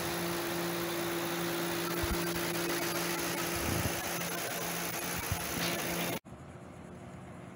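The 2008 Ford Crown Victoria Police Interceptor's 4.6-litre SOHC V8 idling steadily, heard close up from over the open engine bay, with a steady hum over it. About six seconds in the sound cuts off abruptly to a much quieter background.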